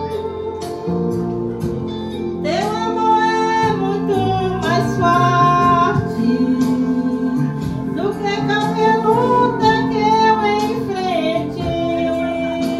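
A woman singing karaoke into a microphone over a recorded backing track. Her voice comes in about two and a half seconds in, in long held phrases.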